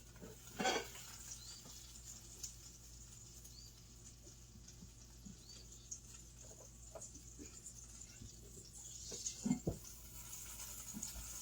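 Quiet kitchen handling: a few soft knocks and clicks, mostly near the start and near the end, over a low steady hum.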